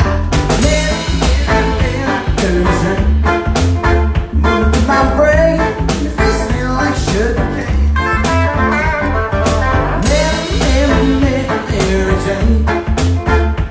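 Live one-man-band music: a man singing while strumming a hollow-body archtop electric guitar, with a foot-played bass drum and snare keeping a steady beat.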